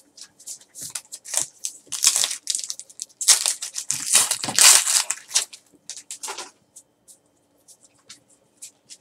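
Foil wrapper of a 2014 Donruss baseball card pack being torn open and crinkled by hand: crackling that is densest from about three to five seconds in, then dies away to a few faint ticks near the end.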